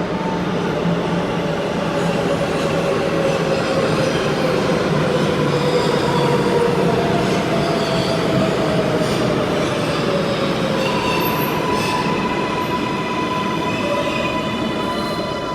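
R188 subway train running on the rails: a loud, steady rumble and rail noise with whining tones that slowly fall in pitch. A higher whine joins about two-thirds of the way through.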